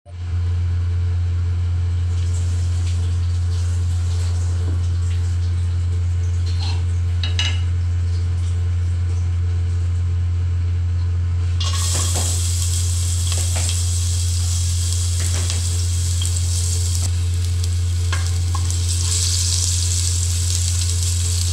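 Strips of ginger frying in hot oil in a pot: the sizzle comes in suddenly about twelve seconds in and keeps going. A steady low hum, the kitchen's noisy exhaust fan, runs beneath it.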